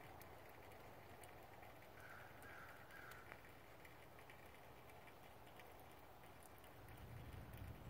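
Near silence, broken about two seconds in by three short bird calls in quick succession. A faint low rumble comes up near the end.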